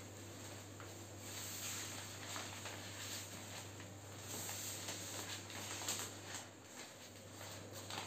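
Wrapping paper rustling and crinkling with small crackles as hands fold and gather it around a flower bouquet, over a low steady hum.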